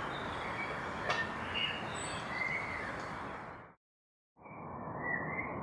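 Outdoor ambience: a steady background rush with small birds chirping over it. The sound cuts out for about half a second a little before four seconds in, then the rush and the birdsong resume.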